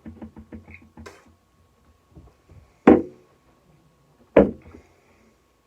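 A man gagging and dry-heaving after a spoonful of baby food: a quick run of short throat catches, then two loud heaves about a second and a half apart.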